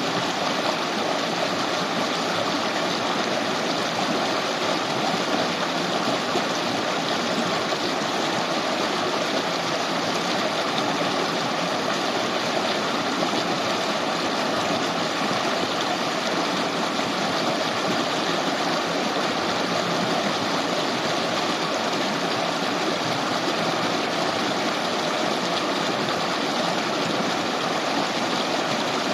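A shallow river running over stones: a steady, unbroken rush of flowing water.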